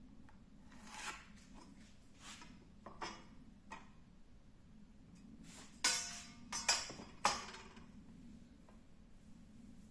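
A series of separate light knocks and clatters of hard objects being handled, over a faint steady hum, with the loudest few close together about six to seven and a half seconds in.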